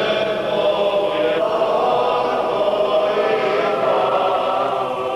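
Choral music: voices holding long chords that change every second or two.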